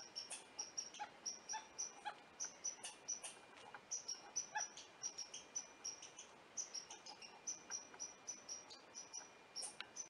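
Red squirrel calling, a steady run of sharp, high chirps at about five a second: its territorial alarm fuss at an intruder.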